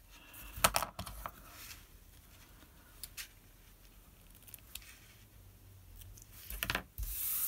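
Small craft scissors snipping the ends of a narrow ribbon, with sharp clicks about a second in and a louder stretch of snipping and handling noise near the end.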